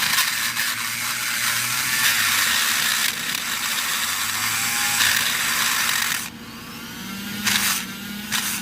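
Electric drill on low speed boring into a Kaba padlock's cylinder core, the bit grinding loudly through metal and the pins; the grinding stops about six seconds in.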